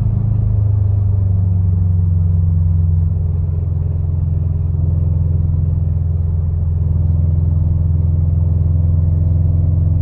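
2015 Subaru WRX STI's turbocharged 2.5-litre flat-four engine running steadily, its pitch dropping slightly about three seconds in. The owner says this engine has developed a strange rattling noise since an oil change.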